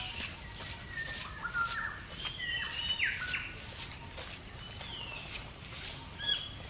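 Forest birds calling: a scatter of short clear whistled notes, several of them sliding downward in pitch.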